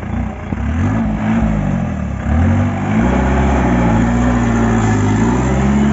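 Mahindra jeep's engine revving hard under load as it climbs a steep mud slope. The revs rise and fall over the first two seconds, dip briefly, then climb again and hold high.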